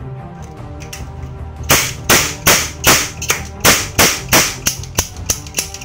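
Toy cap-gun revolver firing a ring of plastic caps: about a dozen sharp cracks in quick succession, roughly three a second, starting almost two seconds in, the last few weaker. Background music plays underneath.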